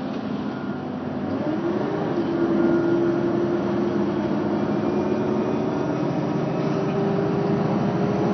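Mercedes-Benz Citaro city bus engine pulling hard under throttle, heard from inside the passenger cabin. About a second and a half in, its pitch rises and it grows louder, then it holds there and climbs slowly.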